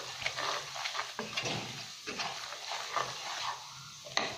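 Wooden spoon stirring and scraping a thick spice paste that is frying and sizzling in oil in a nonstick pan, in irregular strokes. The masala is being fried until the oil separates and rises to the top. The stirring stops shortly before the end, leaving a quieter sizzle, and then there is a single knock.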